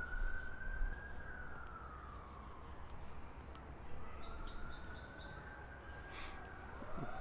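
Faint emergency vehicle siren going by in a slow wail, its pitch rising and falling about every three seconds.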